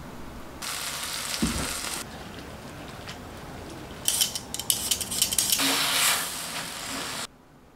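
Kitchen sounds in quick succession: a stretch of hiss about a second in, then hands swishing julienned potato in a tray of water with a run of sharp splashes and clicks, then onion rings sizzling in a pan as they are stirred with a wooden spatula, cut off suddenly near the end.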